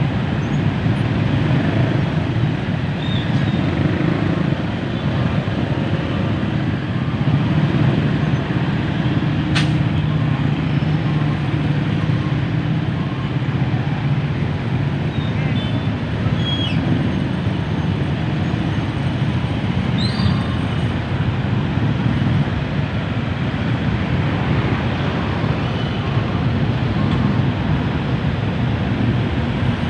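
Dense, slow-crawling road traffic: a steady hum of many engines idling and creeping along, with a sharp click about ten seconds in and a few brief high squeaks.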